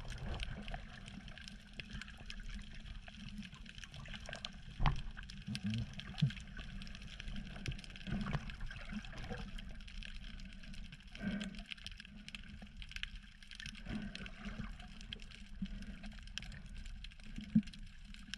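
Underwater sound heard through a submerged camera: a low, muffled water rumble with scattered faint clicks, and two sharper knocks, one about five seconds in and one near the end.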